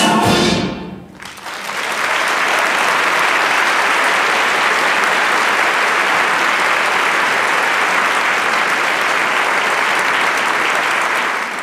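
A piece of music ends, its last chord dying away within the first second. Then an audience applauds steadily.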